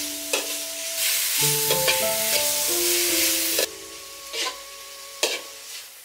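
Diced beef sizzling in a hot wok while it is stirred with a metal slotted ladle, which scrapes and clinks against the pan several times. The sizzle drops sharply a little past halfway.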